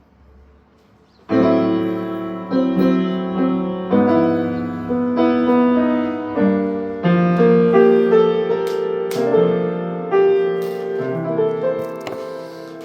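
Piano played in slow chords: a loud struck chord about a second in, then further chords roughly once a second, each ringing on and fading.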